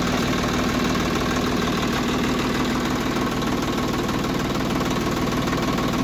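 Swaraj 744 FE tractor's three-cylinder diesel engine idling steadily, with an even diesel clatter.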